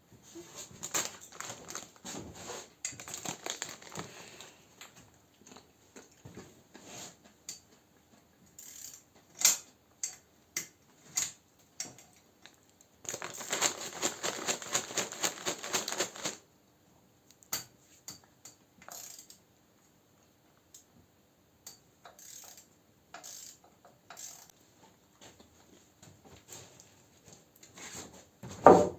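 Hand tools working on a motorcycle engine while its valve cover is taken off: scattered metallic clicks and taps, with two stretches of rapid clicking, one early and one about halfway, and a single sharp knock near the end.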